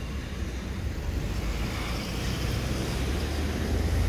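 Parramatta Light Rail CAF Urbos tram approaching slowly on a test run, a steady low rumble that grows louder near the end.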